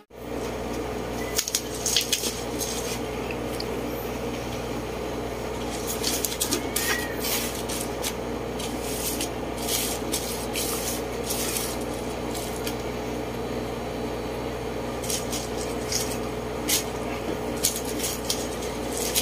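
Bubble-wrap plastic crinkling and crackling in short scattered bursts as bubble-wrapped boxes are handled, over a steady hum.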